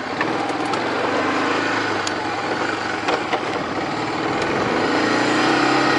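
A motorbike engine running steadily, getting a little louder near the end.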